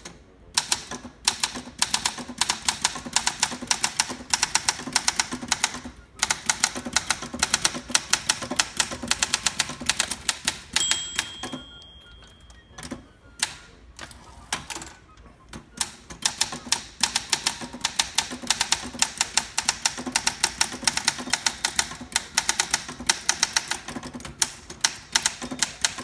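Olympia SM8 manual typewriter typed on steadily, rapid key strikes and typebar snaps. About eleven seconds in, the margin bell rings, warning of the line's end. After a short break while the carriage is returned with the return lever, typing resumes.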